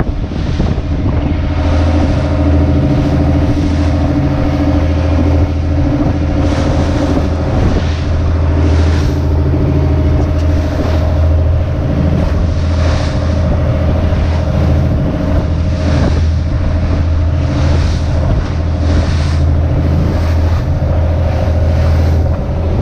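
Small fishing boat's engine running steadily under way, with water splashing against the hull every second or two and wind on the microphone.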